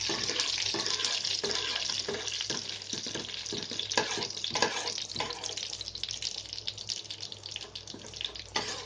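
Tempering seeds and dal frying in hot oil in a steel pan, a dense sizzle with many small crackles and pops that slowly eases off.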